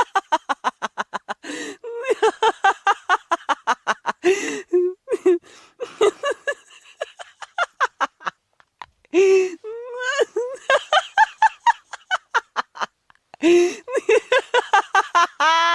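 A person laughing hard: long runs of rapid, high-pitched ha-ha pulses, broken every few seconds by a sharp, wheezy in-breath before the next run.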